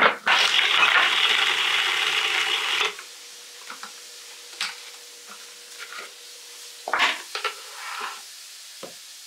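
Electric blender pulsed once for about three seconds, grinding hard chunks of freeze-dried parsnip puree into powder, starting and stopping abruptly. Afterwards a few light knocks and clicks of the container being handled.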